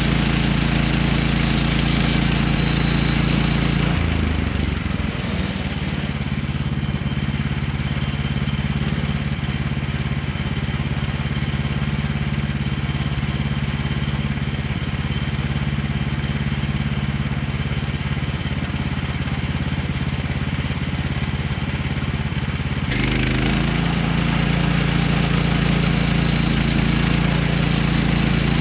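Engine of a Woodlander HM126 sawmill running steadily. About four seconds in its tone shifts and turns a little quieter and duller, and it switches back shortly before the end.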